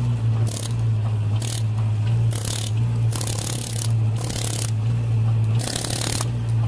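Pneumatic air hammer worked into stiff, freshly placed concrete, running in short rattling bursts with a hiss, roughly once a second. Under it a steady low engine drone runs throughout.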